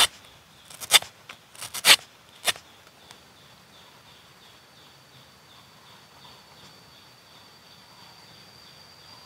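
A long knife blade chopping into coconut husk against a wooden log: a quick series of sharp chops in the first two and a half seconds. After that, insects chirping, with a steady high buzz coming in about three seconds in.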